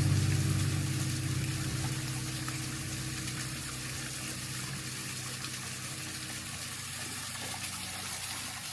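Steady rush and trickle of flowing river water, with a vehicle engine's hum fading away over the first few seconds.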